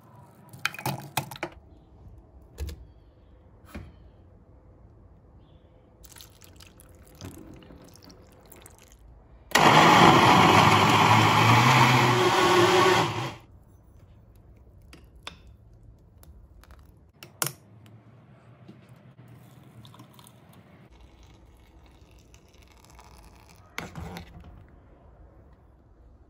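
Electric countertop blender running, puréeing chopped melon and apple into juice. It starts suddenly about ten seconds in, runs steadily and loudly for about three and a half seconds, then cuts off. A few light knocks and clicks sound before and after.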